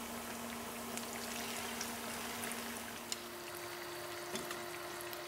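Battered bananas deep-frying in hot oil: a steady sizzle with scattered small pops and crackles. Under it runs a steady low hum that steps up in pitch about three seconds in.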